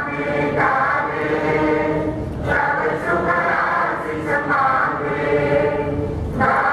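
A group of voices singing together in unison, in long held notes and phrases of about two seconds each.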